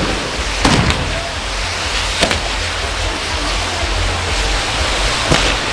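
Ground fireworks spraying sparks with a loud, steady hiss, punctuated by a few sharp cracks.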